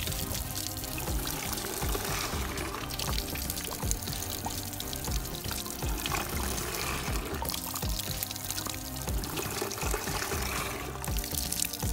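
Water pouring and trickling around a small wood-and-fiberglass test waterwheel as it turns and pumps, with background music.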